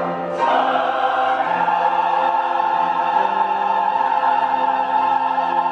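Church choir singing in long sustained chords, with a new chord coming in about half a second in.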